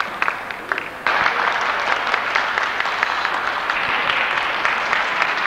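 Scattered clapping from spectators that jumps abruptly, about a second in, to steady applause from the crowd.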